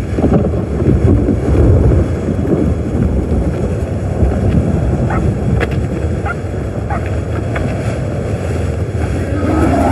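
Tornado wind sound effect: a loud, steady rush of storm wind, heaviest in the low range, swelling slightly in the first couple of seconds.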